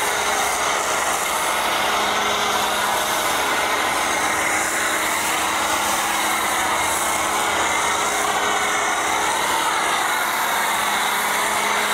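Pressure washer running steadily, driving a PF22 foam cannon that sprays shampoo foam onto the car: an even hiss of spray over a steady low motor hum.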